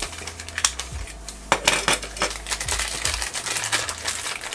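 Crinkling and crackling of a pink plastic blind bag being squeezed and pulled at by hand to tear it open, with irregular sharp crackles.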